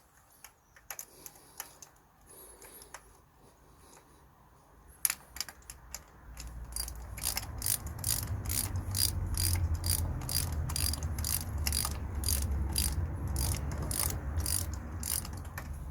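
Ratchet wrench turning a new spark plug into a Vauxhall Corsa 1.2 engine's cylinder head: a few scattered clicks, then from about five seconds in a steady run of ratchet clicks, about two or three a second, as the plug is wound in.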